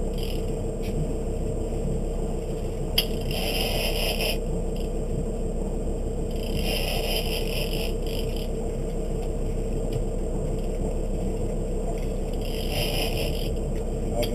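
Big-game fishing reel being cranked in three rasping spurts of a second or so each, as the angler winds line onto a large hooked fish between lifts of the rod. A steady low rumble runs underneath.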